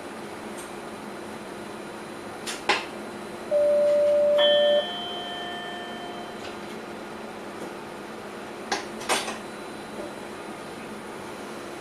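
A steady hum fills a train driver's cab while the cab equipment beeps and clicks. Two clicks come first, then a single loud beep of about a second. A fainter chime of several tones follows the beep, and two more clicks come near the end.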